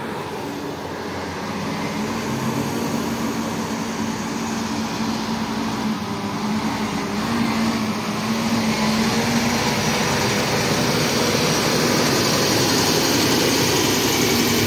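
FAW heavy multi-axle truck with a trailer driving slowly past at close range: its diesel engine runs with a steady low hum that grows louder as it approaches. From about halfway through, louder road and tyre noise builds as the truck and trailer roll by.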